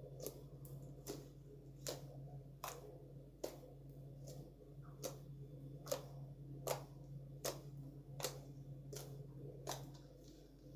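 Fingertips poking and pressing into thick slime, air pockets in it popping with about a dozen sharp clicks spaced evenly a little under a second apart, over a steady low hum.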